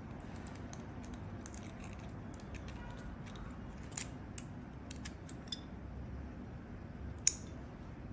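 Small metal parts of an HU66 lock decoder pick clicking and ticking as its core is fitted back into the shell: scattered light clicks, with a sharper click near the end.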